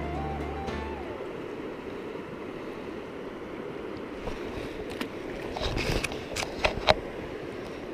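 Background music ends about a second in, leaving a river's steady flow. Near the end, a few sharp knocks and splashes as a landing net is handled in the water, the last one the loudest.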